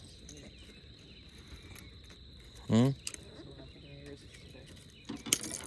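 Steady high-pitched insect drone, with a short loud vocal sound from a person about halfway through. Near the end come a few sharp metallic clicks as fishing pliers and a topwater lure's treble hooks knock together while the hook is worked out of a bass's mouth.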